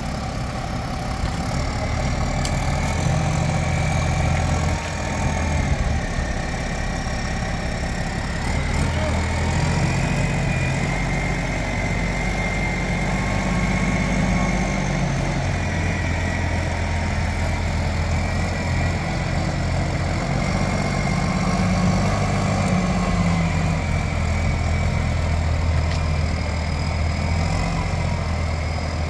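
Engine of a Nippon Sharyo DH408-95M crawler pile driver running steadily. Its low hum swells and eases every few seconds, over a faint steady high whine.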